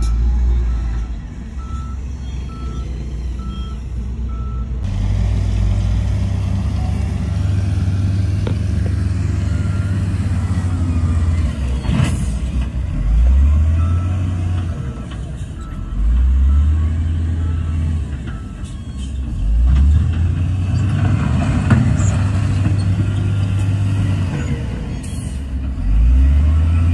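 Diesel engine of a wheel loader running and revving up several times, its pitch climbing with each push. A reversing alarm beeps evenly, about twice a second, in the first few seconds.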